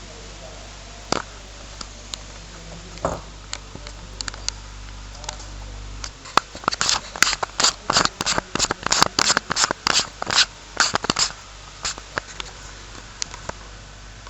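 Small hand tools clicking and scraping: a few scattered ticks, then about six seconds in a quick run of sharp clicks, about four or five a second, lasting some five seconds. A low hum stops just as the run begins.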